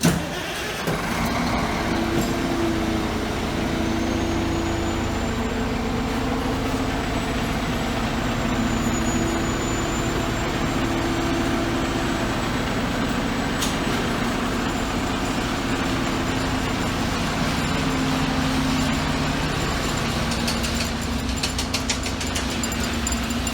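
A heavy truck's engine running steadily at low revs, its note stepping a little up and down. A quick run of faint clicks comes near the end.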